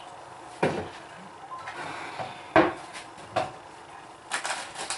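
Kitchen clatter: three separate knocks of utensils against pots and dishes, then a quick run of light clicks near the end.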